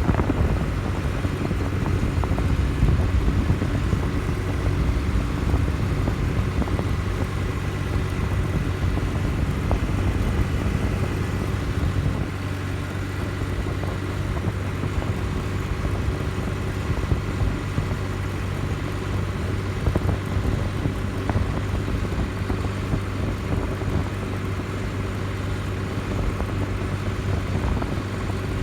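A road vehicle's engine running steadily at an even speed, with road rumble, as while driving.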